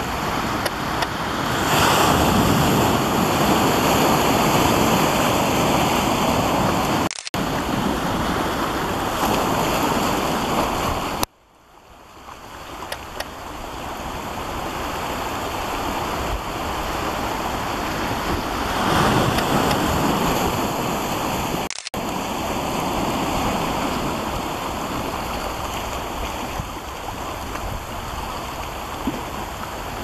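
Sea surf and coastal wind as a steady rushing noise on the microphone, swelling and easing. It cuts out abruptly three times: about seven seconds in, about eleven seconds in, fading back up over a few seconds, and about twenty-two seconds in.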